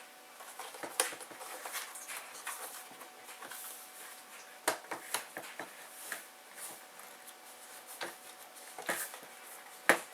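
Plastic gauge-cluster cover of a 1999 Honda Civic being worked loose by hand: scattered, irregular clicks and snaps of its clip tabs, with a few sharper ones a little before the middle and near the end.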